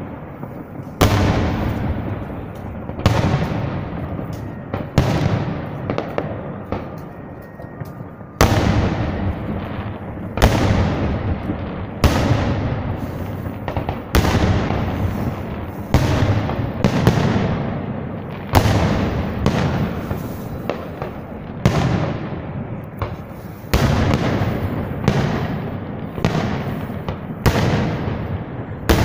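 Aerial firework shells bursting one after another, a sharp bang about every one to two seconds, each followed by a fading echo, with a short lull near the middle.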